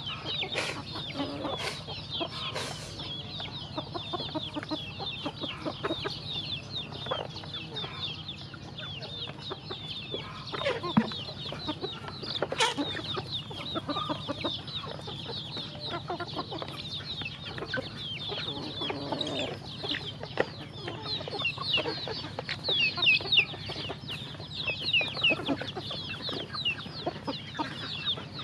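A flock of chickens feeding on grain: hens clucking over a constant chatter of short, high, falling cheeps, with a few sharp clicks.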